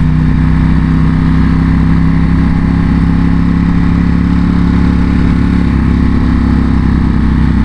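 Ducati Panigale V4 motorcycle's V4 engine running at a steady engine speed, a constant even drone with no rise or fall.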